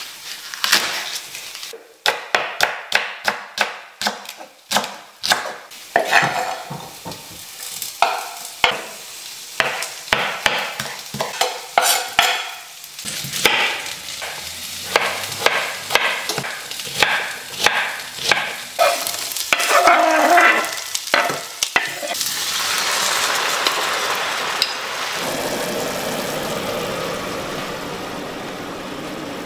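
Quick knife strokes knocking on a wooden cutting board, then chopped vegetables sizzling in a hot frying pan, with clatter and scraping as they are stirred. The sizzle grows steady and loud near the end.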